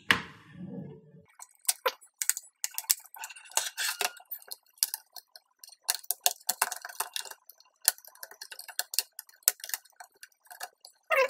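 Plastic snap clips of an HP Pavilion DV6 laptop's palmrest cover popping loose in quick, irregular clicks as it is pried off the chassis with a flat-head screwdriver, with light plastic rattles as the panel is handled.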